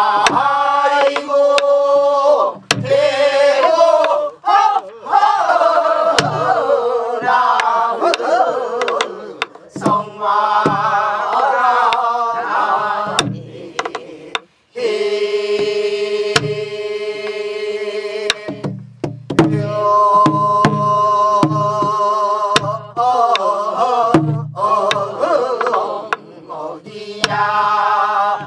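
A group of voices sings a Namdo folk song together in long, wavering held notes, with sharp strokes on a buk barrel drum keeping the rhythm.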